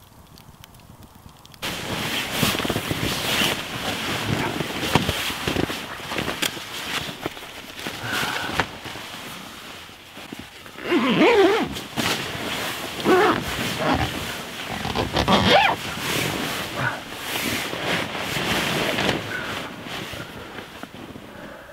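Rustling of a bivvy bag and sleeping bag as someone shifts about and settles inside it. It starts suddenly about two seconds in, and a few louder rasping sweeps come between about 11 and 15 seconds.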